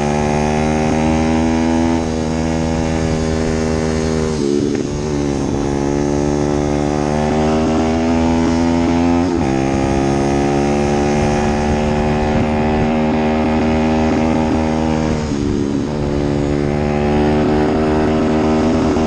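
An engine running steadily, its pitch changing briefly three times, about every five seconds.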